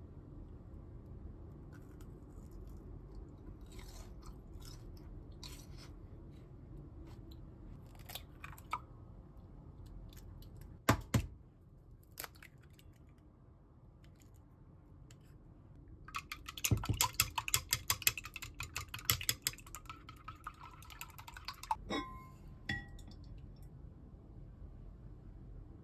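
Chopsticks clicking softly as crisp mochi pieces are set on a wire rack, then an egg cracked sharply on the rim of a ceramic measuring jug about eleven seconds in. From about sixteen seconds, chopsticks beat the egg in the jug in a fast run of clicks for some five seconds, ending with a few ringing taps on the jug's rim.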